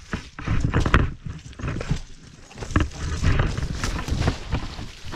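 Mountainboard wheels rolling fast down a wet dirt trail, with a steady low rumble and irregular thuds and clatters as the board hits bumps and ruts.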